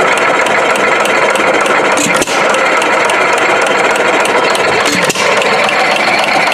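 3.5 hp Jaeger hit-and-miss engine running at its full governed speed just after starting on a single pull. Its exhaust has a sharp crack, the sign that compression now holds at the valves instead of leaking out in a soft poof.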